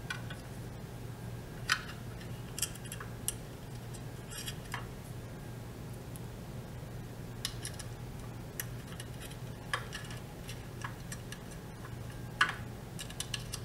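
Scattered small clicks and ticks of a hex key and a small button-head screw being fitted into a plastic plate, the sharpest about a couple of seconds in and again near the end, over a steady low hum.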